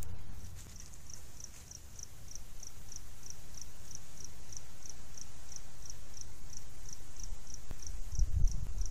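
A cricket chirping steadily, about three to four short high chirps a second, over a low rumble that swells briefly near the end.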